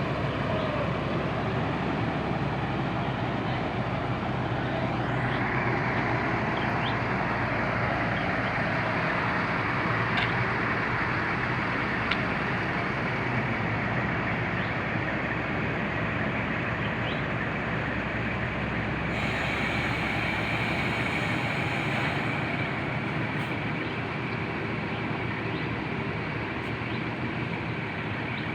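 An engine running steadily under a constant broad hiss, which grows louder about five seconds in, with a few faint ticks.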